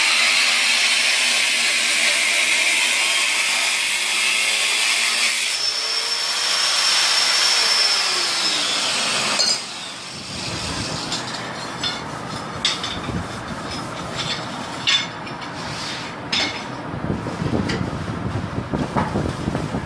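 Electric tile cutter running loudly with a hissing whine for about nine seconds, its pitch sliding down as it stops. After that come scattered knocks and clatter of tiles and tools being handled.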